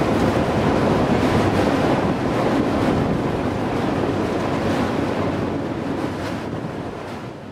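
Steady rumble and rush of a moving freight train heard from aboard the car, with wind buffeting the microphone. It fades out gradually near the end.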